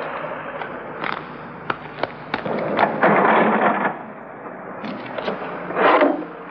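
Handling noises at a shop counter: scattered clicks and light knocks, with a stretch of rustling about three seconds in, as a small package is passed across the counter. A steady hiss runs underneath, from an old film soundtrack.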